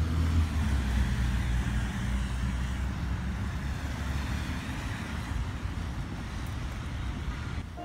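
City street traffic: a steady low rumble of passing vehicles, loudest at the start and slowly fading.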